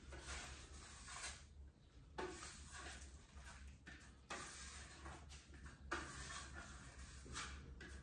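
Faint, repeated scraping strokes of a hand tool smearing tinted acrylic putty across a wall, blending the colours into a marble pattern. A steady low hum lies underneath.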